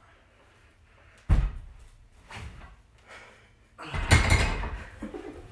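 Loaded barbell on a home weight bench clanking against the metal uprights during a bench-press set. There is a sharp clank about a second in, a lighter knock after it, and a louder, longer clatter a little before the end.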